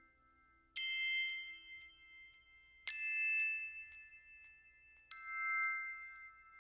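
Background music: three bell-like struck notes, about two seconds apart, each ringing on and slowly fading.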